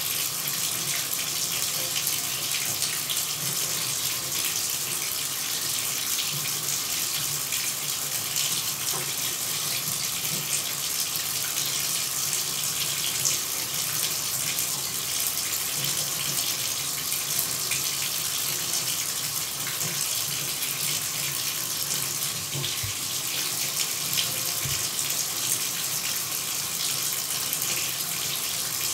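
Shower running: a steady hiss of falling water spray that does not change or pause.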